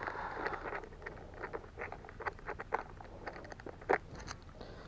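Close handling noise from fishing gear and a freshly caught snakehead on the line: scattered light clicks and rustles, with one sharper click near the end.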